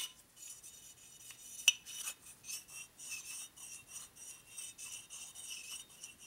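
Steel wrist pin scraped and rubbed against an aluminium Harley shovelhead piston by hand: a run of short, quick metal scraping rubs, with a sharp clink at the start and another about a second and a half in. The rubbing is working off melted glue residue stuck on the parts.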